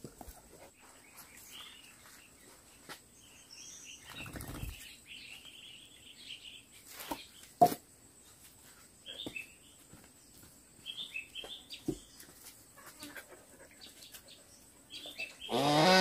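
Small birds chirping now and then in the background, with a brief rustle about four seconds in and a sharp click near the middle. Just before the end, a loud fowl call with rising pitch.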